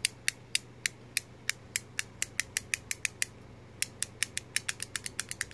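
Antsy Labs Fidget Cube clicking under the thumb: a string of sharp, uneven plastic clicks, a short pause a little past halfway, then quicker clicking near the end.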